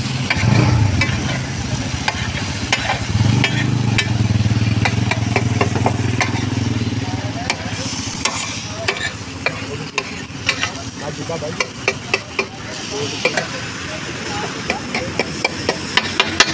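Food sizzling on a large tawa griddle while a metal spatula scrapes and clatters against the hot plate, with sharp taps coming several to a second in the second half. A low steady hum runs under it and fades about halfway through.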